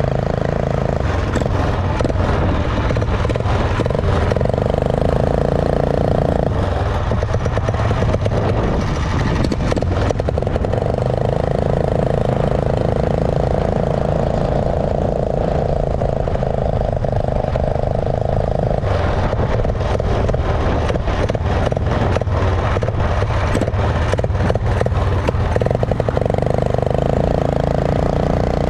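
212 cc single-cylinder four-stroke engine of a motorized bicycle running under way, its note changing a few times. There is a stretch of rapid rattling clicks in the second half.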